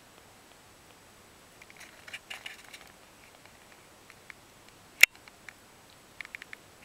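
Kitten suckling at its mother's teat: a scatter of small wet clicks and smacks in a cluster about two seconds in and again near the end, with one sharp, much louder click about five seconds in.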